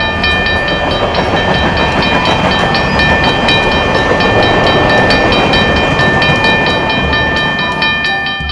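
Train running sound effect: a steady rattling rumble of a train on the rails, fading a little near the end, with a light repeating jingle tune over it.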